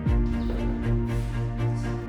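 Background music with a steady beat and a sustained bass line, with a deep falling swoosh at the start.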